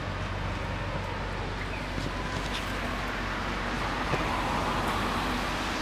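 Steady street traffic noise, an even hiss that swells a little in the second half, over a low steady hum.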